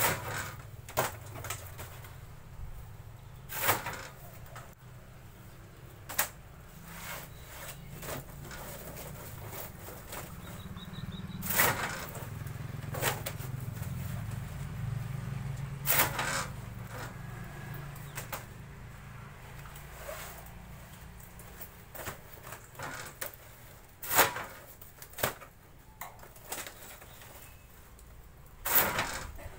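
A hand-lever veneer cutter chopping through dry waste veneer sheets, with irregular sharp chops a few seconds apart. Between the chops the dry sheets rustle and clatter as they are handled, over a low steady hum.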